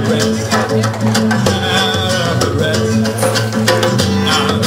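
Live band playing an instrumental passage with a Latin feel: strummed acoustic guitar and djembe hand drum over steady held low notes.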